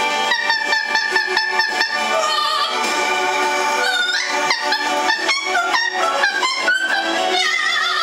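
Blue-fronted Amazon parrot calling in two rapid runs of short calls that glide up and down in pitch, with a lull of about a second and a half between them, over background music.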